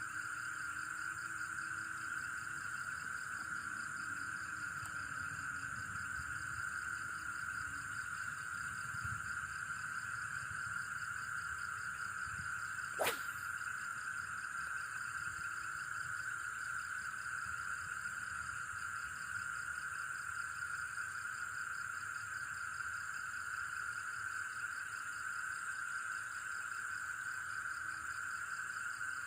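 Steady chorus of night insects, crickets and the like, chirring in several high-pitched layers, one of them a fast pulsing trill. One sharp click about thirteen seconds in.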